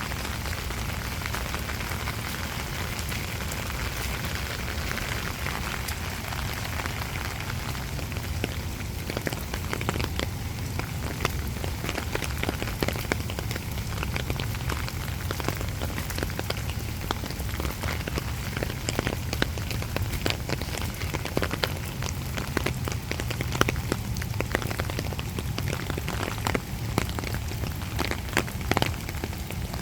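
Steady rain with individual drops tapping sharply on a hard surface. The taps grow more frequent from about nine seconds in.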